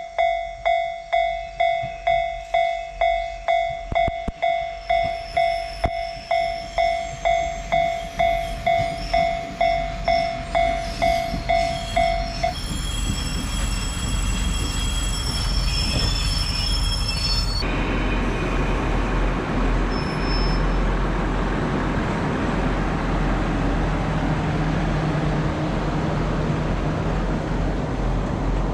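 A warning bell strikes about twice a second, each ding dying away, then stops as a KiHa 147 diesel railcar pulls in with its brakes squealing. The railcar's diesel engine then revs up loudly as it pulls away.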